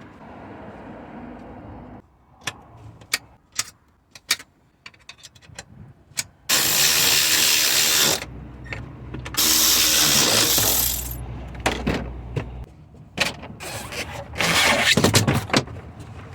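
Mechanic's hand work on the car: scattered sharp clicks and knocks of parts and tools being handled, then two loud runs of a hand-held power tool, each about a second and a half long, with another short loud stretch near the end.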